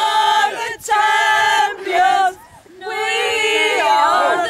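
A group of men and women singing together loudly, in long held phrases with short breaks between them.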